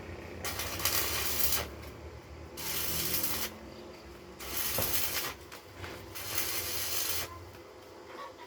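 Repeated rasping, scraping strokes, each about a second long and coming roughly every two seconds, over a low steady hum.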